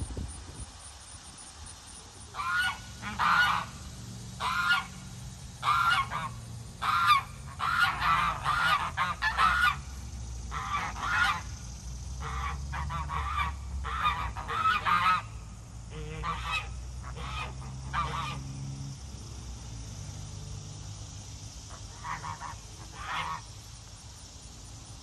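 Domestic geese honking: a long run of short, loud honks, often several a second, that thins out about eighteen seconds in, with a few more honks near the end.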